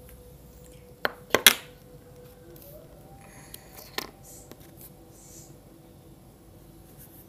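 A few sharp clicks and knocks of small objects being handled on a table, the loudest cluster about a second and a half in and another near four seconds.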